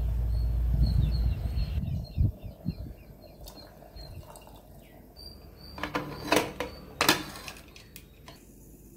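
Kitchen handling at a pressure cooker: a low rumble in the first second or so, water poured into the curry, then a few sharp metal clinks as the steel lid is set on the cooker and closed. Birds chirp faintly in the background.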